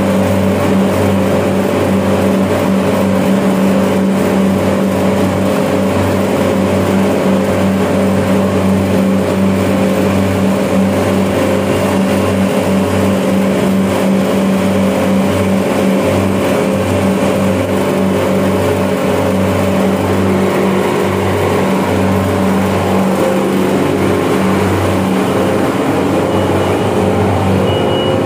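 York reciprocating chiller running: compressor and fans making a steady, loud machine hum with a strong low drone.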